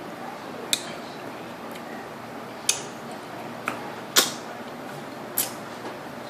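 Five sharp mouth clicks and lip smacks, the loudest about four seconds in, from a person chewing a Red Mutt superhot chilli pepper, over a steady low hiss.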